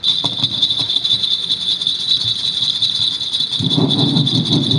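Sound effect for a comic make-things-bigger machine: a loud steady high-pitched buzzing rattle that starts abruptly, with a lower rumble joining about three and a half seconds in.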